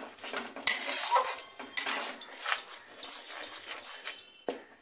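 Metal spatula scraping and stirring a thick spice paste with yogurt around a kadai, in a run of irregular strokes that fade near the end.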